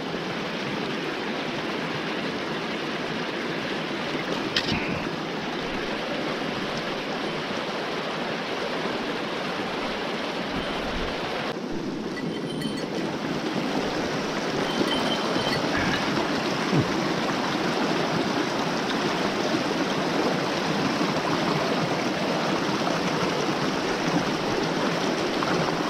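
Stream rushing over rocks: a steady wash of running water that grows louder about halfway through, with a few faint clicks.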